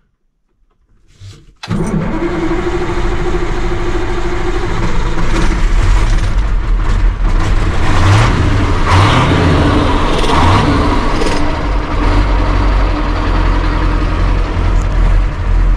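KAMAZ truck's diesel engine starting after a second and a half of near silence, then running loudly, its speed rising and falling a few times around the middle.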